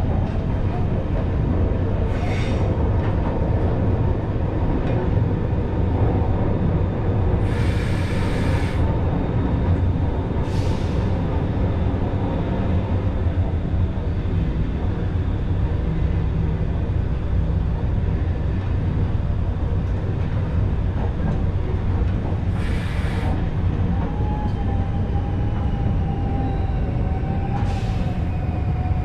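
Vintage electric train running through an underground tunnel, heard from inside the driver's cab: a steady low rumble of wheels and running gear, broken by several short bursts of hiss. A faint whine joins in near the end.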